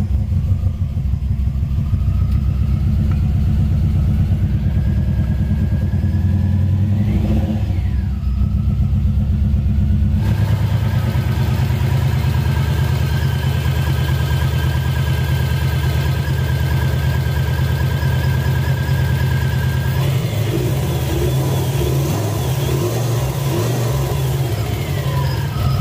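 Subaru EJ20 turbocharged flat-four engine running at idle, with a brief rise and fall in revs about seven seconds in.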